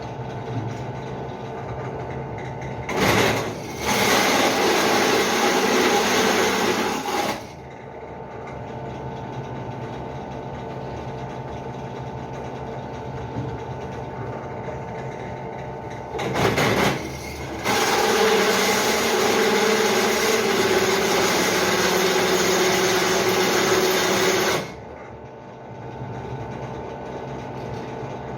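Benchtop drill press running with a steady motor hum. Twice a 9.5 mm twist drill bit is fed into 6 mm steel plate, giving a loud cutting noise: once for about four seconds a few seconds in, and again for about eight seconds past the middle, each time starting with a brief burst as the bit meets the metal.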